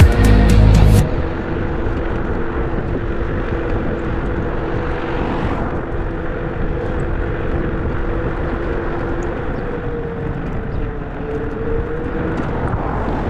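Music that stops about a second in, then the steady road and engine noise of a car being driven, with a faint constant hum.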